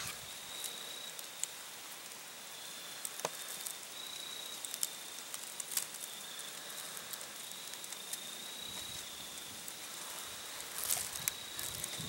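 Quiet field ambience: a thin, steady high-pitched insect trill that breaks off and resumes, with scattered faint clicks and rustles in the grass from a skunk foraging nearby.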